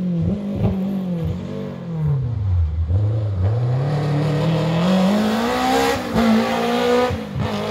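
Rally car's engine on a night special stage: the revs fall over the first three seconds, then climb hard as it accelerates past, with a gear change about six seconds in.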